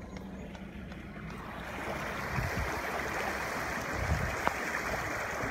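Floodwater rushing and splashing, heard from inside a car, growing louder about two seconds in, over the car's low engine hum.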